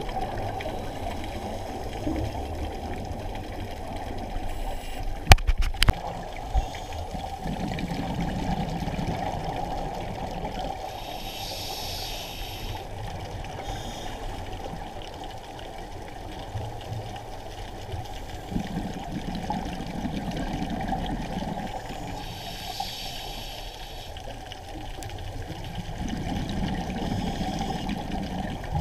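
Scuba diver breathing underwater through a regulator: a low bubbling of exhaled air, then a hiss of inhaling, repeating about every ten seconds over a steady underwater hiss. A few sharp clicks or knocks come about five to six seconds in.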